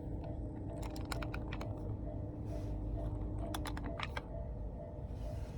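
Train wheels clattering over rail joints at a level crossing: a quick run of about eight clicks a second in, then a group of about four more, over a steady low rumble.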